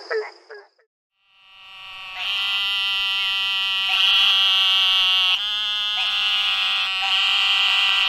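The last couple of short barking treefrog calls, then after a brief pause eastern narrow-mouthed toads giving long, nasal buzzing calls that fade in and run on as a steady, overlapping buzz.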